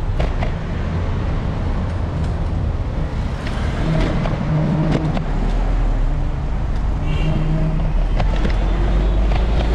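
Street traffic: car and city bus engines running close by, over a steady low rumble, with a deeper engine hum swelling twice.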